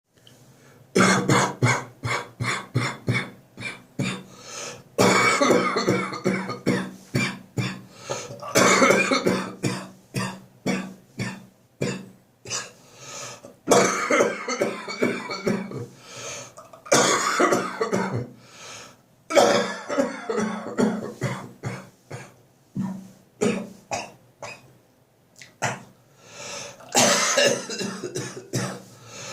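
Chesty bronchitis cough: repeated fits of coughing with short gaps between them. The first fit is a quick run of about half a dozen short coughs, and the later fits are longer and come every few seconds.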